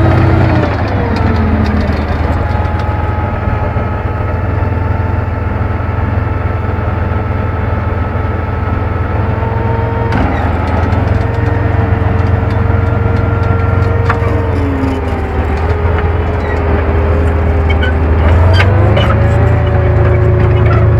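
Tank engine running with a heavy drone and a whining tone, both dropping in pitch about a second in and climbing again near the end; a few rattles and clicks near the end.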